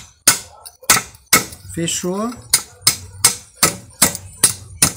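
A hammer striking a small metal fitting on a wooden stump, crimping it shut around a nylon leash rope. About ten sharp blows: a few at first, a short pause near the middle, then a steady run of about two and a half blows a second.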